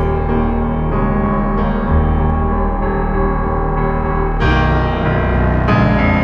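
Background music led by piano or keyboard, playing held chords over a low bass that change every second or so.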